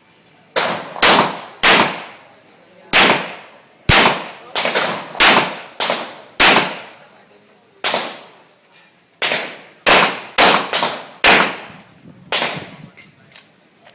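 A string of gunshots at a shooting range: more than a dozen sharp reports fired at an uneven pace, some in quick pairs and some a second or more apart, each with a short ringing tail, with a few fainter shots near the end.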